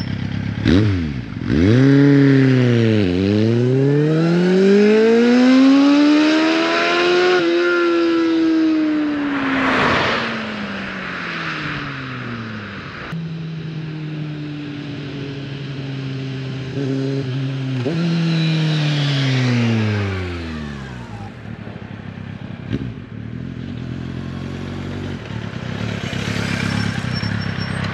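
Kawasaki Z750 inline-four with an aftermarket MIVV exhaust pulling away hard, its pitch climbing and dropping several times as it revs up through the gears. After about 12 seconds the engine note falls and fades as the bike rides off into the distance.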